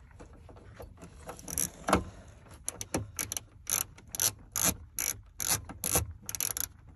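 Ratcheting hand tool clicking in short bursts as a speaker mounting screw is driven in. The clicks start about a second and a half in and settle into strokes about twice a second.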